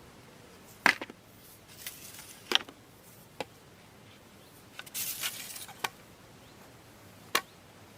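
A few scattered sharp clicks and knocks, with a short burst of rustling about five seconds in: fishing tackle and a landing net being handled.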